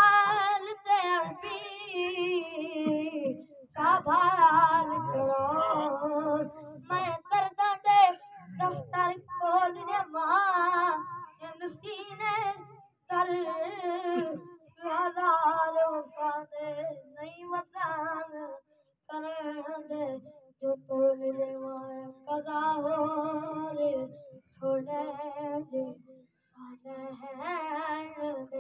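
A boy singing a naat unaccompanied, in a high voice with wavering, ornamented phrases broken by short pauses for breath.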